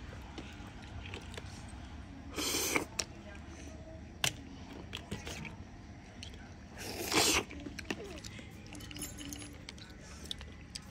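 Eating ghungi river snails from the shell: two short, loud slurps about four seconds apart, with small clicks and clinks of shells in between.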